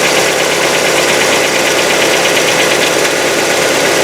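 Hyundai Getz engine idling cold, with the fast, even ticking of its hydraulic valve lifters, which fades out near the end as the oil pressure reaches them. The owner puts the ticking down to lifters badly clogged with deposits.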